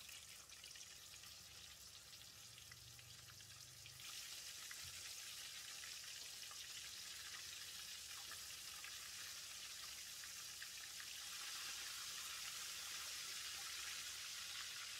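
Flour-coated prawns deep-frying in hot oil in a stainless steel wok: a faint, steady sizzle that grows a little louder about four seconds in and again later on.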